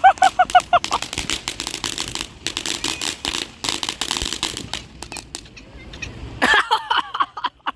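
Ground fountain firework crackling with a rapid spray of sharp pops. A wavering, pulsing whistle sounds for under a second at the start and again near the end.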